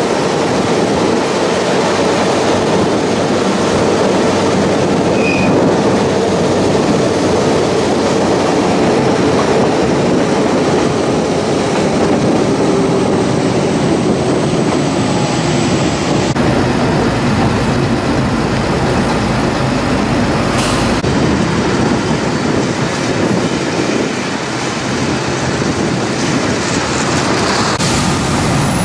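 Ferrovie Appulo Lucane narrow-gauge (950 mm) train running steadily along the line, with a faint hum that sinks slowly in pitch over the first half.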